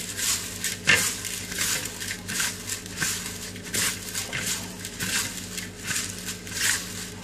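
Hand tossing and rubbing chopped fresh fenugreek leaves with salt in a bowl: repeated soft rustling, crunching strokes, with a sharper tap about a second in.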